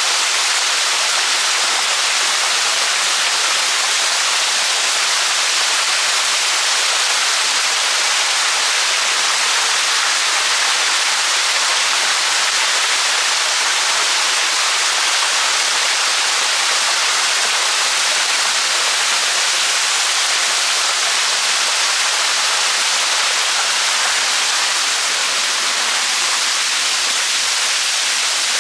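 Waterfall: a steady, loud rush of falling water, even throughout with no breaks.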